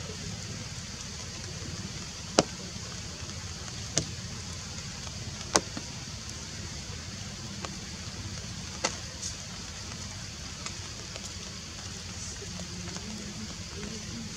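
Steady outdoor background noise, a low rumble under a high hiss, broken by a few sharp clicks or snaps scattered through it, the loudest about two seconds in.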